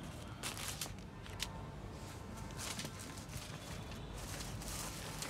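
Rustling and light handling noise of paper and cloth as a printed catalogue card and folded suit fabric are moved about on a table, in a few short bursts.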